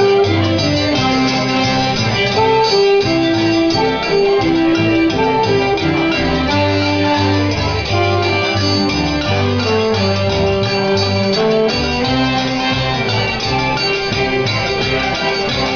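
Live Cajun jam band of fiddles and guitars playing a dance tune, with held melody notes over a steady beat.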